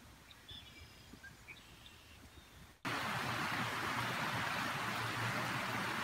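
A few faint bird chirps in quiet woods. Then, about halfway through, an abrupt cut to the loud, steady rush of a small creek cascading over a low waterfall.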